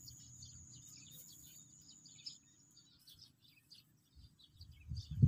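Many short bird chirps over a steady high insect whine that stops about three seconds in. Near the end, a loud low rumble.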